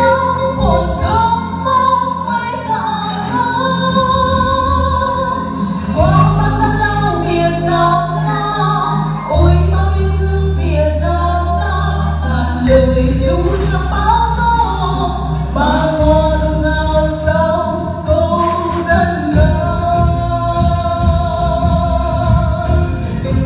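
Music: a song with singing over held bass notes and a light beat.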